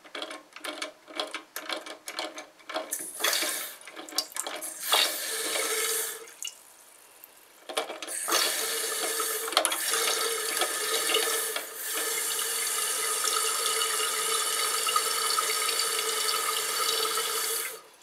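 Fluidmaster PerforMax toilet fill valve refilling the tank: water hissing in with a steady tone, broken by a short pause about six seconds in, then cutting off suddenly near the end as the float shuts the valve at its set level. At the start, a quick run of clicks as the float's thumb-turn adjustment is turned.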